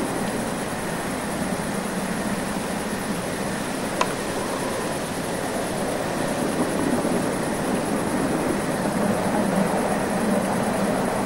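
Steady rumbling background noise, with one sharp click about four seconds in.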